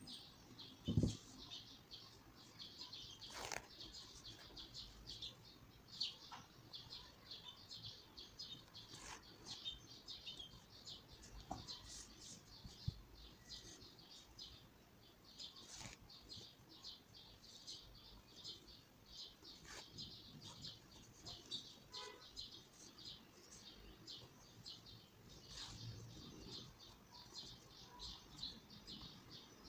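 Faint, rapid chirping of small birds in the background. A soft thump comes about a second in, with a few light clicks from handling the work.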